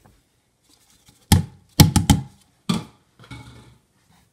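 Five sharp knocks on a container as moist worm bedding is tipped and knocked out of it onto the bin, three of them in quick succession. A softer rustle follows as the bedding lands.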